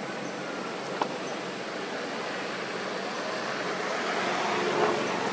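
Steady rushing background hiss with a single sharp click about a second in.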